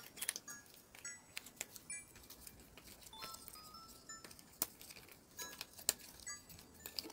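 Faint clicks, taps and rustles of Apple EarPods being worked free of their white card packaging and their cable uncoiled, with a few soft notes of background music between the handling noises.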